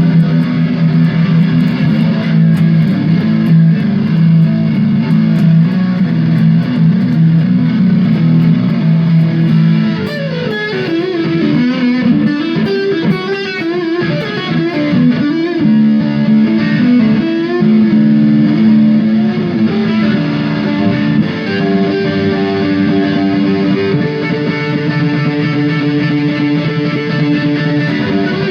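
Electric guitar played through an amplifier in a solo jam. It holds ringing chords at first. From about a third of the way in come bent, sliding lead notes with wide vibrato, then it settles back into sustained notes.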